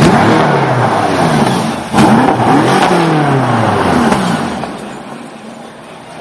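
BMW M5 F10's twin-turbo V8 exhaust blipped twice, about two seconds apart, the revs falling back after each, then fading as the car rolls slowly away.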